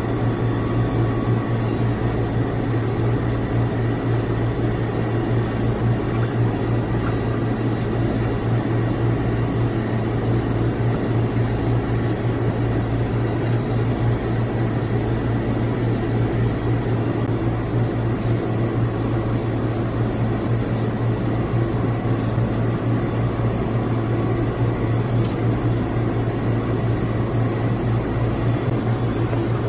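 Steady machine drone of a commercial kitchen's running equipment: a strong low hum with a few fainter steady tones above it, unbroken throughout.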